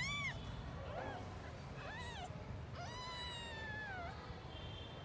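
Newborn kittens mewing in high, thin cries while jostling to nurse: hungry kittens competing for milk. About four calls, the one about three seconds in long and falling in pitch.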